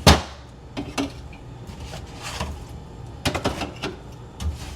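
Refrigerator shelf being handled and fitted into place: one sharp clunk at the start, then several lighter knocks and rattles.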